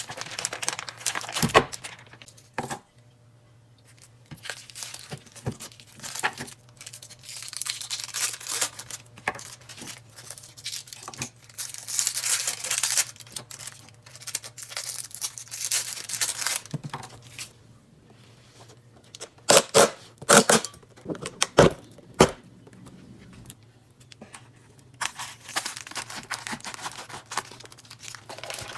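Crinkling plastic film being peeled and torn off imitation crab sticks and rice-cake packaging, in irregular rustling stretches. A few sharp knocks stand out, the first near the start as a knife goes through luncheon meat onto a bamboo cutting board, and a loud cluster about two-thirds of the way in.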